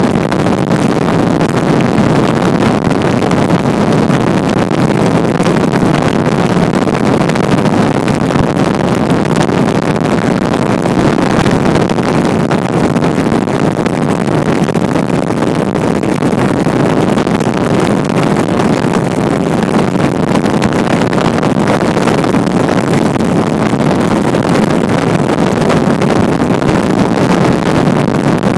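Motorboat under way at steady speed: a constant, loud rush of engine and water noise that does not change.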